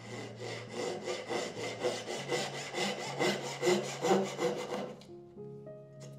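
Fine-toothed Japanese dozuki saw cutting across a wooden tenon to form its haunch, in rapid, even strokes that stop about five seconds in.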